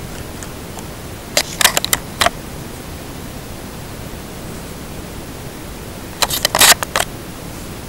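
Steady hiss of a low-quality camera microphone, with two short bursts of crackly handling noise, one about a second and a half in and one around six seconds in.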